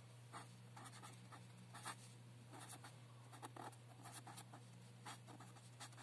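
Felt-tip pen writing on paper: faint, short scratchy strokes at irregular intervals as a word is written out, over a low steady hum.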